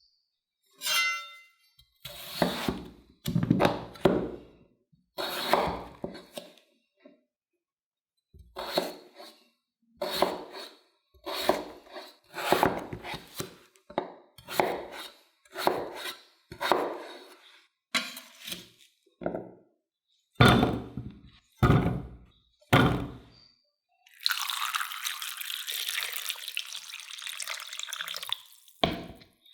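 Potatoes being handled and rinsed at a kitchen sink: a light clink, a string of separate knocks and splashes, then a tap running steadily for about five seconds near the end.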